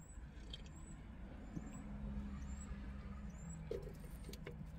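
Steady low hum of an idling car heard inside its cabin, with faint high bird chirps repeating about once a second.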